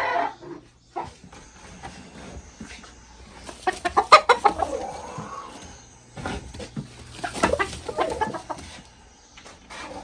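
Chickens clucking in short repeated bursts, one cluster about four seconds in and another from about six to eight seconds in.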